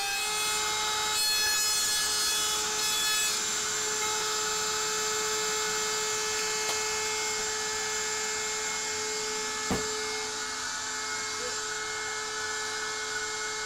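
A rotary power tool running a cutting bit through a plexiglass sheet: a steady whine of several even tones, with one sharp click about ten seconds in.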